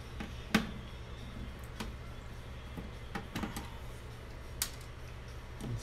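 A few scattered clicks and light knocks as hands unplug the wire connectors from a flat-screen TV's power supply board, the sharpest about half a second in.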